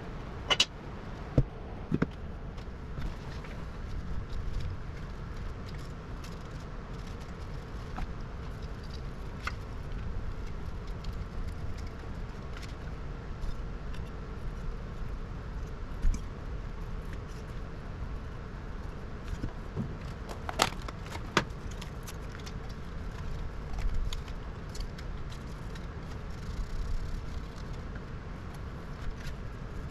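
Scattered sharp clicks and taps of small tools and card parts being handled on a workbench, over a steady low rumble; three come in the first two seconds and a pair about two-thirds of the way through.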